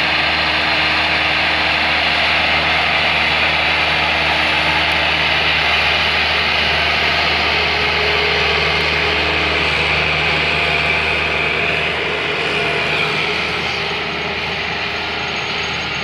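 Heavy diesel engine of a single-drum soil compactor roller running steadily at close range, a low, even hum under a dense mechanical rumble, easing slightly in level about three-quarters of the way through.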